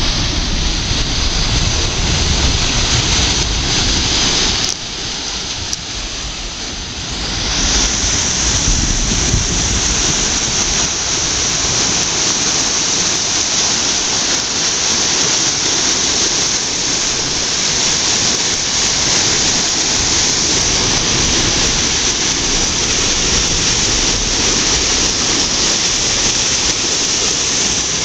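Large whirlpool sucking river water down into a lock's filling intake pipes, a steady thunderous rushing of water. It eases for a couple of seconds about five seconds in, then returns with a stronger hiss.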